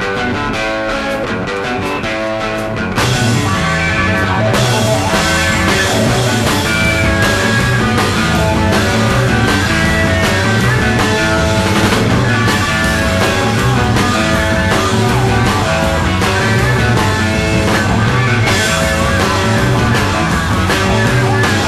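Rock band playing the instrumental opening of a live song with guitar and bass; the drums and cymbals come in about three seconds in, and the music gets louder.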